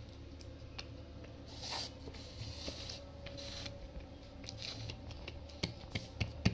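Silicone spatula pressing and smoothing soft, warm barfi topped with sliced almonds: a few faint soft scrapes and, near the end, a couple of light taps, over a steady low hum.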